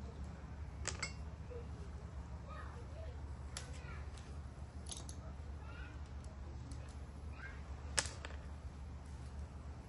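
Scattered sharp clicks and light knocks over a steady low hum, the loudest knock about eight seconds in.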